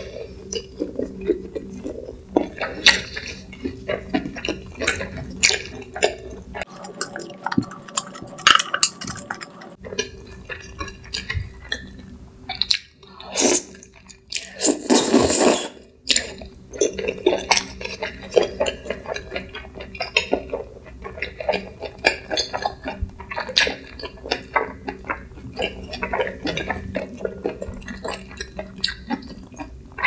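Close-miked wet chewing and lip-smacking of chewy spicy stir-fried webfoot octopus, with many short clicks and smacks and the odd chopstick click against the dishes. About halfway through comes a longer, louder wet stretch.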